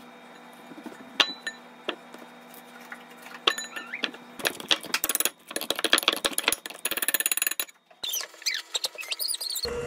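Ripe bananas dropped into a glass mixing bowl with a few light knocks, then mashed with a metal potato masher: a fast run of clinking, squishing strokes against the glass about halfway through. Just before the end an electric hand mixer starts with a steady hum.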